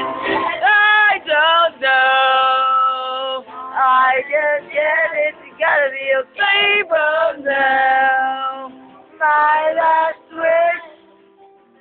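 A single voice singing loudly close to the microphone in long held notes, phrase after phrase with short breaks between, bending in pitch at the ends; it dies away near the end.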